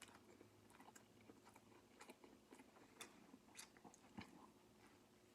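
Faint chewing of a mouthful of crispy fried chicken sandwich: scattered, irregular crunches of the breading, a few louder ones about three and four seconds in.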